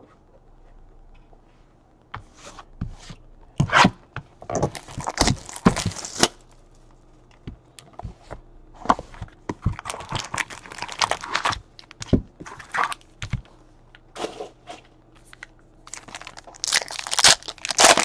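Packaging of a box of trading cards being torn and crinkled by hand in bursts, then a foil card pack torn open near the end with loud crinkling.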